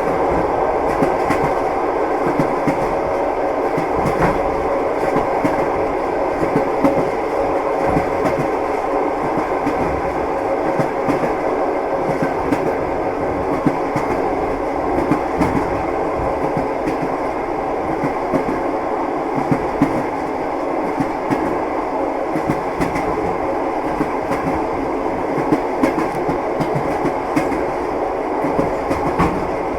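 Train wheels clattering over the rail joints: a steady rumble with irregular sharp clicks running on without a break.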